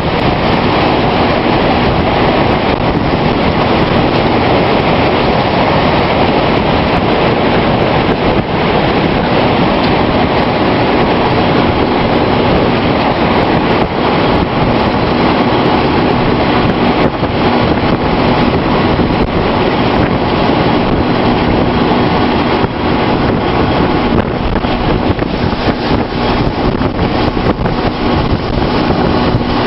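Strong wind from an approaching tornado rushing and buffeting the microphone, a loud, steady roar of noise.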